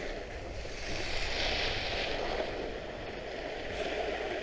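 Trikke Skki ski blades scraping and hissing over hard, cold snow while carving downhill, the hiss swelling about a second in during a turn.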